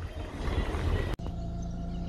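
Rumble and wind noise from a vehicle moving along a dirt road, cut off abruptly about a second in. It gives way to a steady low hum with faint bird chirps.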